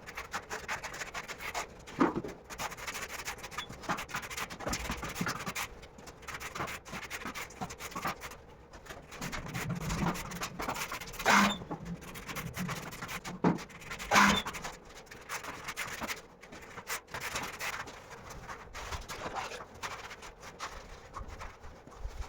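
Irregular scraping and rubbing of a tiling tool working grout into ceramic floor tile joints, with a few sharper knocks.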